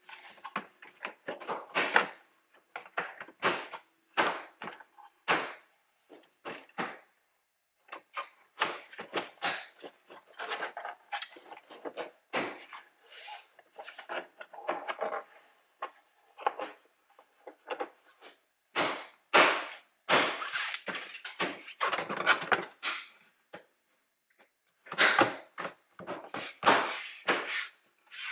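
Plastic rear quarter trim panel in a Toyota RAV4's cargo area being fitted back into place by hand: irregular knocks, taps and plastic scraping against plastic, with a few brief pauses.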